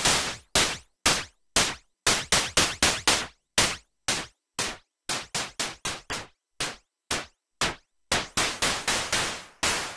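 Noise Engineering Tymp Legio drum module in Boing mode, playing a sequenced pattern of noisy, metallic hi-hat-like hits. The hits grow short and clipped in the middle and ring out longer again near the end as the decay is turned.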